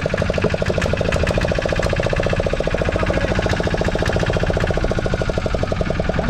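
Fishing boat's engine running steadily with a fast, even throb.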